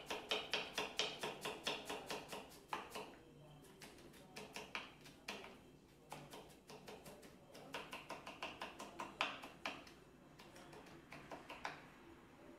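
Kitchen knife chopping onion on a wooden cutting board: runs of quick knocks, about five a second, broken by short pauses.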